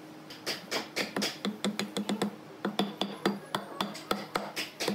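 Mallet tapping a rounded wooden cap down onto the glued, dowelled top edge of a pine panel: a quick series of sharp wooden knocks, about four a second, with a couple of short pauses.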